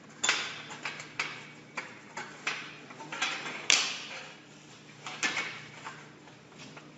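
CNC aluminium-coil bending machine at work: a string of irregular sharp clacks and short noisy strikes over a steady low machine hum.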